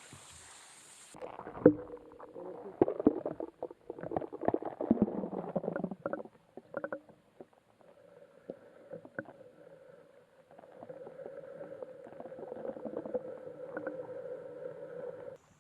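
Kayak paddling: irregular knocks of the paddle against the hull and water splashing. A steady hum comes in during the second half and cuts off suddenly near the end.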